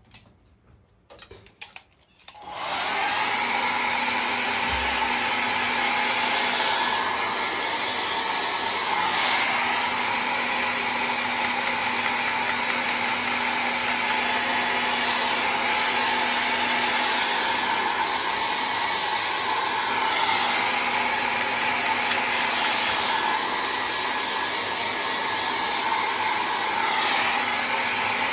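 Electric hair dryer switched on about two and a half seconds in, then blowing steadily, drying the wet ink painting on rice paper.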